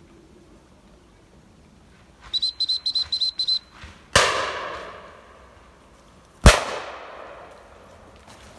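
A whistle blown in a rapid string of short, high pips, then two shotgun shots about two seconds apart, each echoing away slowly; the second shot is the louder.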